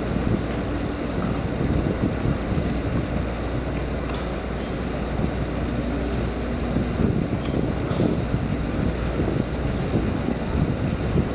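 New York City subway train on the track beside the platform, a steady low rumble with a faint hum that comes and goes.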